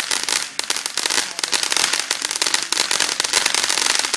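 Fireworks crackling: a dense, continuous stream of rapid small pops.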